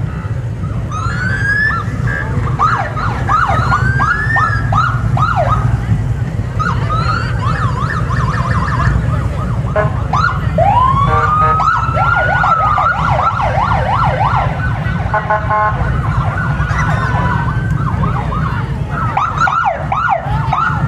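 Police sirens sounding in fast repeated yelp sweeps, with a slower rising wail about halfway through, over a steady low rumble.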